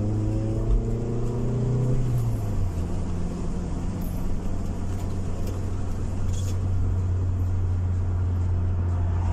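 Car engine and road noise heard from inside the cabin while driving: the engine note rises in pitch as the car accelerates, drops away about two seconds in, then settles into a steady low drone with tyre and road noise.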